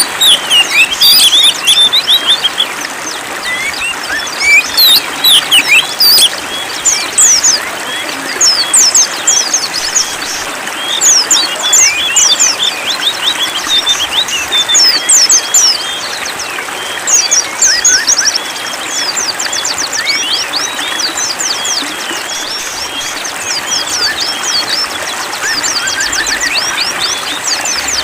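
Small songbirds chirping and twittering in fast runs of high, quick notes over a steady rush of running water.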